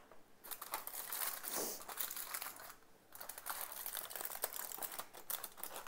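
Irregular crinkling and rustling of takeaway food packaging being handled, with a brief pause about three seconds in.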